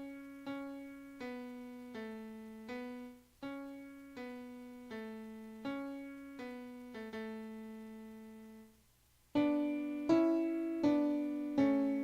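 Keyboard with a piano sound playing the baritone line of a hymn one note at a time, each note struck and left to fade, roughly one and a half notes a second. About nine seconds in it breaks off briefly, then comes back louder with fuller notes.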